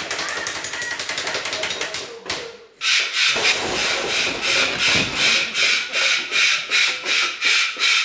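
Rhythmic scratchy rubbing strokes, fast and even at first; it breaks off a little over two seconds in, then comes back as a steadier beat of about two strokes a second.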